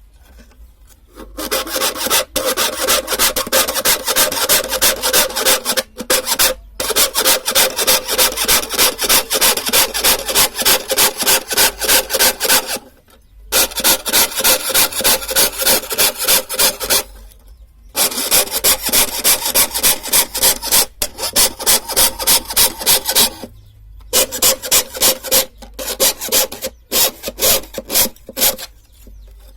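Hand saw cutting through wood in quick, even back-and-forth strokes, in several runs broken by short pauses.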